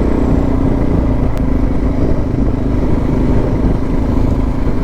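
Suzuki DR650 motorcycle's single-cylinder four-stroke engine running steadily while riding uphill on a dirt road.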